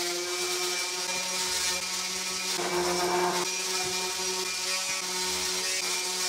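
DeWalt random orbital sander with 150-grit paper running at speed on a pine block: a steady motor hum, with a brief rougher, louder patch about three seconds in.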